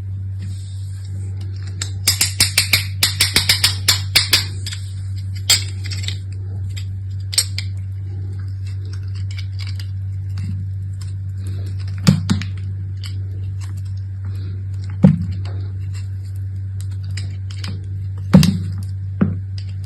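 Soap packaging being handled and opened: a run of crackly rustling about two seconds in, then single sharp taps and clicks every few seconds, over a steady low hum.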